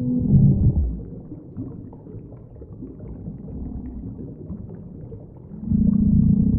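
Custom-made monster roar sound effect for the kaiju M: a deep, held low call ends with a downward slide about a second in, a quieter low rumble follows, and another deep held call starts near the end.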